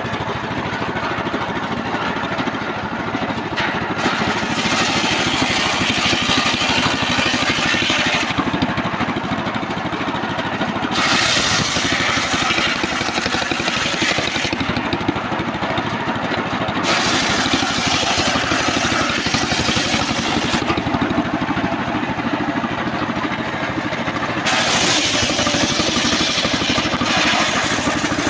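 Homemade engine-driven circular saw bench running steadily while its blade rips old trembesi (rain tree) hardwood boards. The blade cuts into the wood four times, each cut a harsh rasp of three to four seconds over the engine's steady running.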